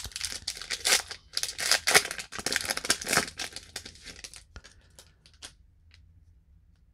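Wrapper of a Topps Update baseball card pack crinkling and tearing as it is opened, for about four and a half seconds, followed by a few light clicks.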